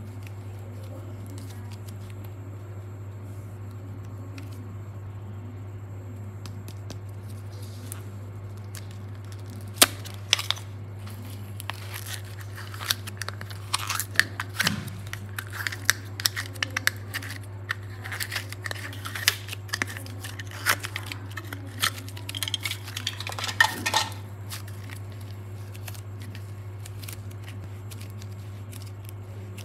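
Thin clear plastic wrapper crinkling and crackling as it is pulled off soft orange modeling clay, in a run of sharp clicks and rustles that starts about a third of the way in and stops a few seconds before the end. A steady low hum runs underneath.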